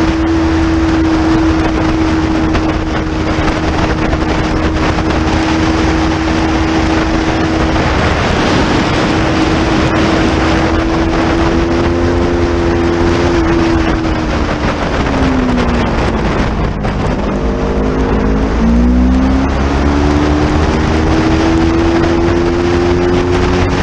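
Motorcycle engine running hard at high revs, with wind rushing over the microphone. The engine note holds steady, drops for a few seconds past the middle as the throttle is eased, then climbs again under acceleration.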